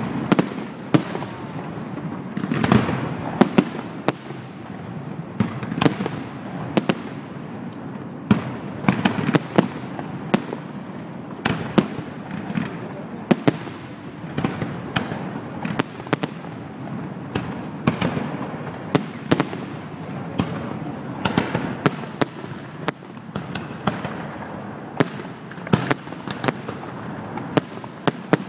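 Fireworks display: aerial shells launching and bursting in a rapid, unbroken run of sharp bangs and crackles, several a second.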